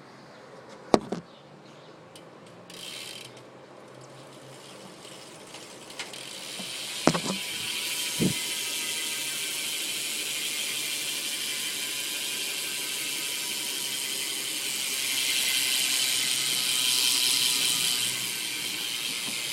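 BMX rear hub's pawls ratcheting in a fast, steady buzz as the back wheel spins freely, after a few knocks as the wheel is handled and set spinning. The buzz gets louder about three-quarters of the way through.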